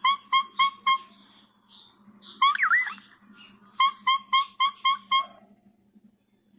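A whistled tune of the kind taught to cockatiel chicks: four quick clipped notes, a swooping rising-and-falling phrase, then a quick run of six notes.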